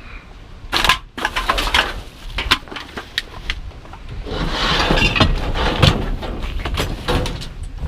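Metal scrap being handled and moved, a series of sharp knocks, clanks and rattles with a denser scraping rustle in the middle. A low wind rumble sits on the microphone underneath.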